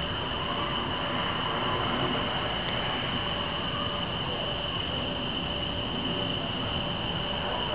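Night insects chirping steadily: a constant high trill with a second call pulsing a few times a second, over a low, noisy rumble.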